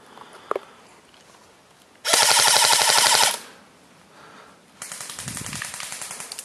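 Airsoft rifles firing full-auto bursts: a loud burst of about a second starting about two seconds in, then a fainter, longer burst near the end.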